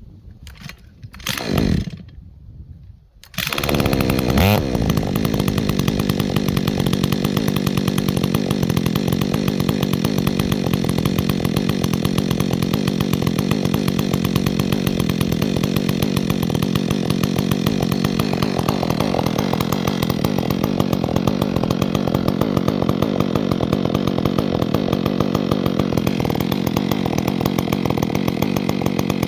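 Chainsaw starting about three seconds in after a few short, uneven sounds, rising briefly in pitch, then running steadily and loudly.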